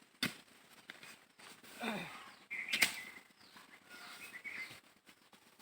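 Pigs giving short squeals, one falling in pitch about two seconds in and another near three seconds, with a few sharp knocks.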